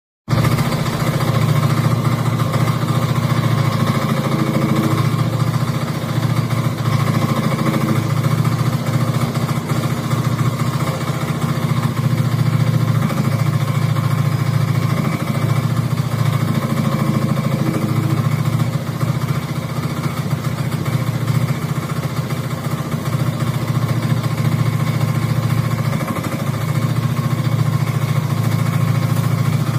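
Engine of a 1-ton mini excavator running steadily while the arm and bucket are worked, with a low hum that rises and dips slightly in level.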